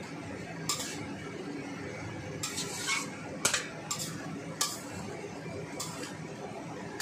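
Metal spatula scraping and clinking against a stainless steel wok as vegetables and meat are stir-fried over a steady sizzle. The strokes come irregularly, the sharpest about halfway through.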